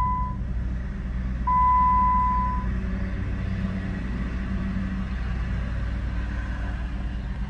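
2008 Jeep Wrangler Unlimited's 3.8-litre V6 idling with a steady low hum, heard from inside the cabin. The instrument cluster's warning chime sounds twice, a short tone at the start and a longer one of about a second shortly after, as the cluster shows its CHANGE OIL reminder that the oil change is due.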